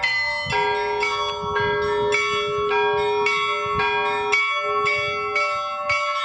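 Church bells rung as a festive Easter peal: several bells of different pitch struck in quick succession, overlapping and ringing on. A lower bell's tone rings under them and stops a little past the middle.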